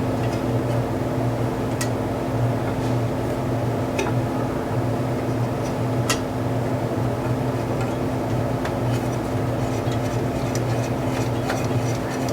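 Steady mechanical hum with a few sharp metallic clicks and taps of hand tools working on engine bolts. The clicks come more often near the end.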